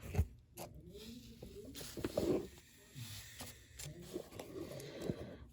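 Handling noises of small metal engine parts on a workbench: a sharp knock just after the start, then scattered clicks and rustling.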